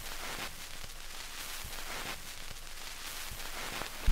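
Steady hiss with scattered faint crackles, the surface noise of the soundtrack with nothing else playing.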